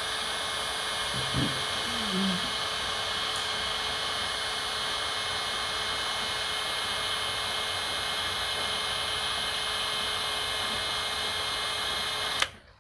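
A small electric motor-driven tool running steadily with a high whine over a hiss, switched off abruptly near the end.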